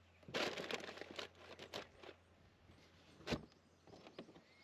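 Rustling and crinkling of gear being handled for about two seconds, then a single sharp knock about three seconds in, followed by a few faint ticks.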